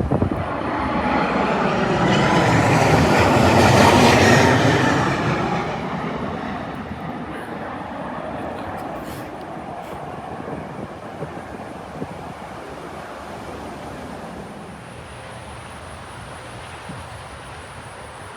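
Southwest Airlines Boeing 737 jet passing low overhead on approach, its engines swelling to a loud rushing roar about four seconds in with a sweeping, phasing sound, then fading slowly as it moves away.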